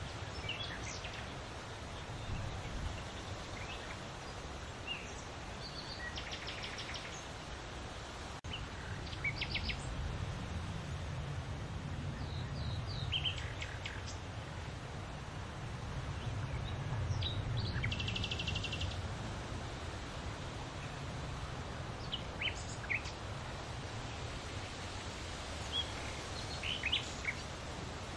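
Songbirds chirping and giving short rapid trills now and then, over a steady rustle of leaves in the wind with a low rush that swells midway.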